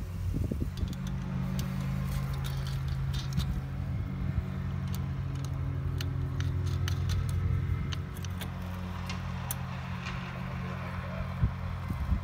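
Scattered metal clinks and clicks from small hardware as an awning bracket and exhaust clamp are worked onto a roof rack bar by hand. Under them runs a steady low hum of a vehicle engine running.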